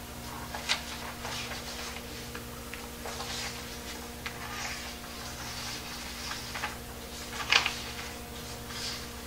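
Sheets of paper rustling and shuffling in short, irregular scrapes, with a sharper crackle about a second in and a louder one near the end: pages of poems being leafed through in search of the next one.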